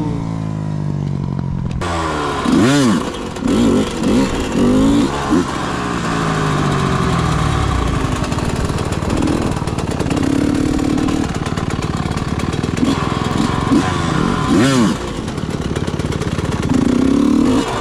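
Dirt bike engines revving in a series of quick blips a few seconds in, again near the end, with stretches of steady throttle in between, over a constant rushing noise.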